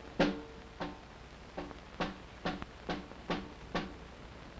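Footstep sound effect: light, unevenly spaced taps, about two a second, each with a short pitched ring.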